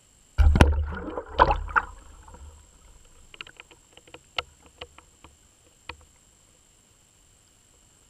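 Underwater recording of a pike striking a dead-bait fish: two sudden loud thumps of surging water, about half a second and a second and a half in, with a churning rush that dies away over the next second. Then a scatter of sharp clicks.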